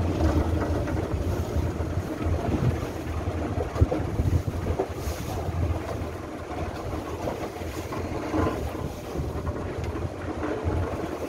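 Thai long-tail boat under way, its engine running under heavy wind buffeting on the microphone and the rush of water past the hull. A single brief thump about four seconds in.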